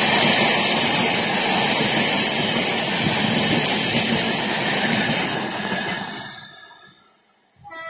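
Express train's passenger coaches running past at speed, a steady loud rumble and clatter of wheels on rail that fades away about six seconds in once the last coach has gone by. A brief tone sounds right at the end.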